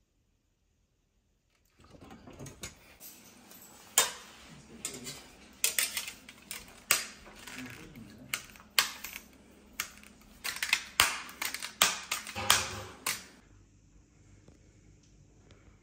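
Sharp, irregular clicks and clacks of the metal and plastic parts of a Samsung Slim Fit wall mount (WMN-B50EB) being handled and fitted together. They start about two seconds in, come in quick clusters, and stop shortly before the end.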